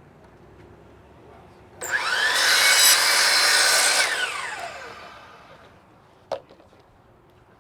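Power saw spinning up and cutting a siding piece for about two seconds, then winding down with a falling whine. A single sharp knock follows.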